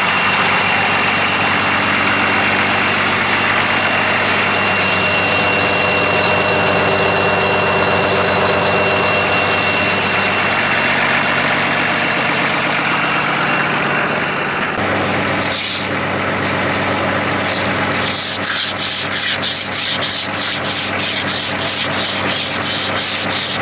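Toyota Landcruiser turbo diesel engine in a Galion grader idling steadily, with a thin, steady turbo whistle over it for the first half. From about 18 seconds in, fast, even scraping strokes, about four or five a second, as rust is scrubbed by hand off the grader's side shift cylinder.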